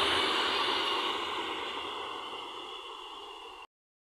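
Container freight wagons rolling past on the rails, the wheel-and-rail noise steadily fading as the train moves off, then cutting off suddenly near the end.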